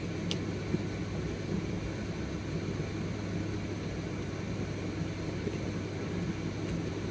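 Steady low hum and hiss of room background noise, with a couple of faint small clicks in the first second.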